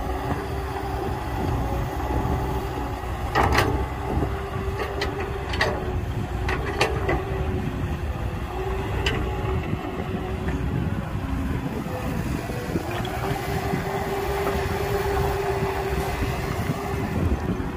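Heavy diesel machinery running steadily, with a held whine over a low rumble. A cluster of sharp knocks and clanks comes about three to nine seconds in.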